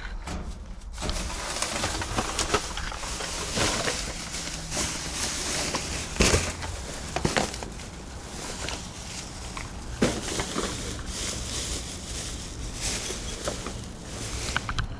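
Plastic trash bags rustling and crinkling as they are handled and moved, with a few sharp knocks.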